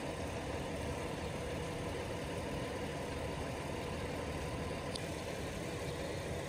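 A vehicle engine idling steadily, with one faint tick about five seconds in.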